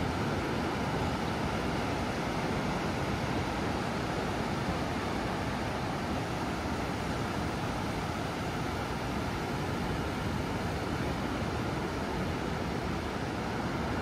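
Steady roar of ocean surf on a beach: an even wash of noise with no single wave crash standing out.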